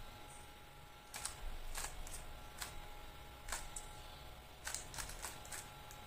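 A stickerless 3x3 speed cube having its faces turned by hand through a last-layer algorithm: a string of about ten faint, light plastic clicks, some in quick pairs.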